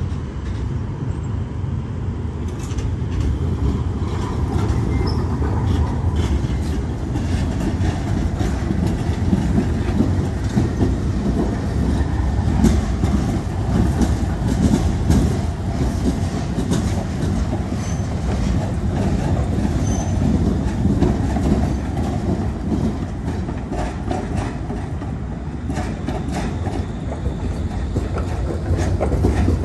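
Articulated city trams passing close by on street track: a steady rolling rumble with the wheels clicking over the rail joints.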